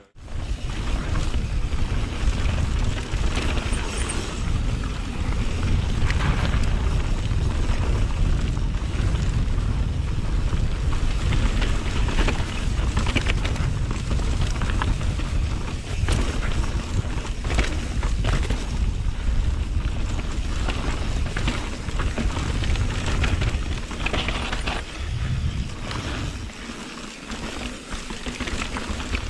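Mountain bike riding fast down a trail heard from an action camera mounted on the rider or bike: wind buffeting the microphone under a constant clatter of tyres over gravel and the bike's frame and chain rattling. It eases a little near the end.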